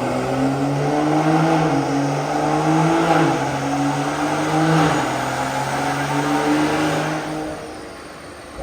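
Car engine running hard, its pitch repeatedly dropping and climbing back in steps every second or two, then dying down near the end.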